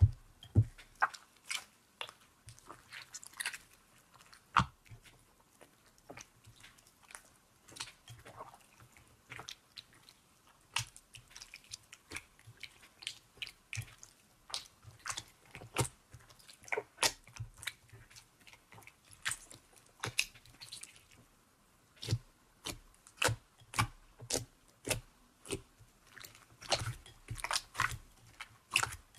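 Slime being kneaded and squeezed by hand in a bowl, giving irregular runs of sharp pops and clicks with short pauses between them.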